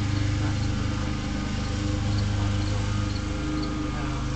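Small engine idling steadily, a low even hum with a fine rapid pulse.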